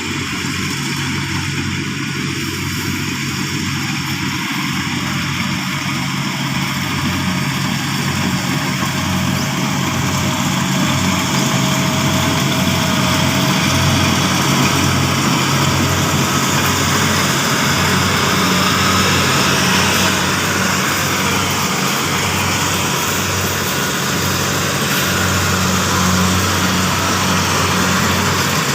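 Kubota combine harvester running steadily during rice harvesting: a constant engine hum under a broad mechanical whir, growing slightly louder about a third of the way in.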